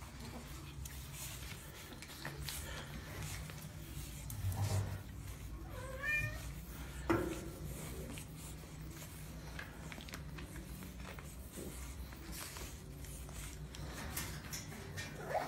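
Pug puppies giving a few short, high, rising whines, over a steady low hum. A sharp knock just after the middle is the loudest sound.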